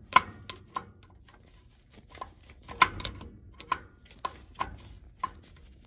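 Screwdriver working a mounting screw out of a zone valve head: scattered small metallic clicks and ticks at irregular intervals.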